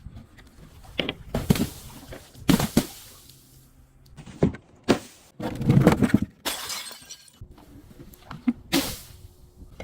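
Glass breaking and crunching: a series of separate sharp cracks, with a longer run of crushing crunch a little past the middle.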